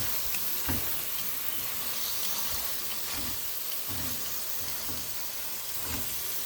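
Chicken, ginger, garlic and onions sizzling steadily in a hot pan while being stirred, with a few soft knocks of the utensil against the pan about a second apart.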